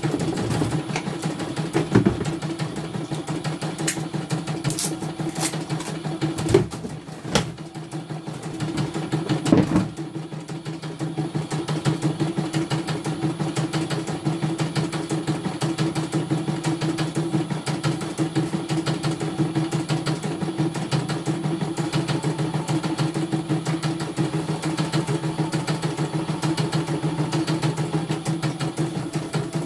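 CNY E900 computerized embroidery machine stitching a design: a fast, even run of needle strokes as the hoop carriage steps the fabric. A few sharper knocks and a brief lull come in the first ten seconds.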